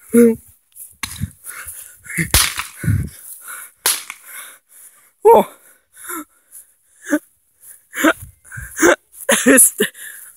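Breathless, wheezing gasps and short pitched cries in irregular bursts, with a few sharp cracks in the first seconds.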